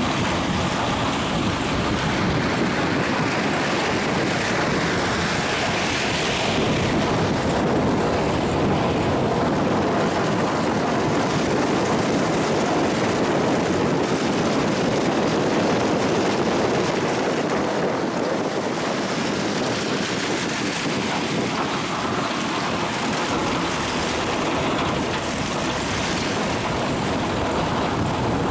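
Snowplow truck running steadily with its front plow blade down, pushing snow along the road: a continuous mix of engine noise and the blade scraping through snow.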